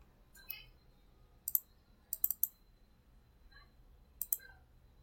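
Computer mouse buttons clicking in short groups: a single click, a quick pair, three rapid clicks, then another pair near the end.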